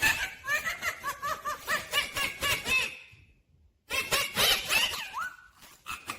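Indian ringneck parakeet chattering: a rapid run of short chirpy notes, a brief silence about three seconds in, then more chatter with a sweeping call near the end.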